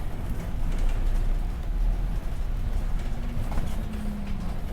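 A vehicle running: a loud, steady low rumble with a faint engine or motor hum that rises slightly about three seconds in.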